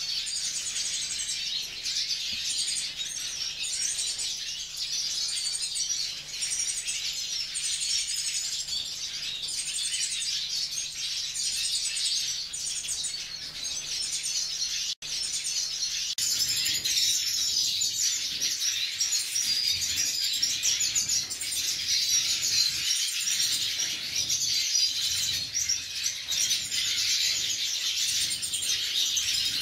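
A mixed aviary flock of siskins, red siskins and black-headed yellow siskins among them, chirping and twittering continuously. In the first half a short high call repeats about once a second. After a brief break about halfway, the chatter is louder.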